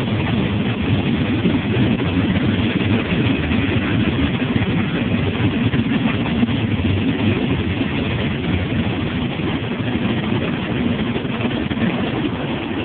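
Freight train cars rolling past, a steady rumble of steel wheels on the rails that gets a little quieter near the end as the last cars go by.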